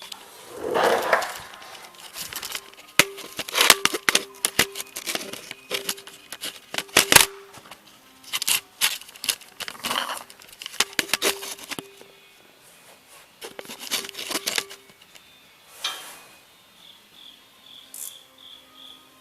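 Scattered clicks, knocks and rustling of hands handling parts and tools under a car, with short evenly spaced insect chirps at the start and again near the end.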